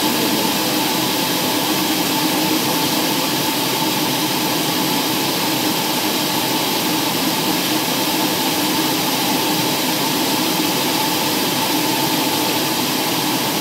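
Steady drone of an aircraft in flight heard inside the cabin: engine noise and rushing air at a constant level, with a faint steady hum running through it.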